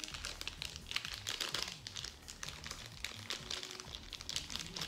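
Plastic crinkling and crackling in the hands, an irregular run of small crackles, as a toy alien's intestine piece is forced into a small plastic opening.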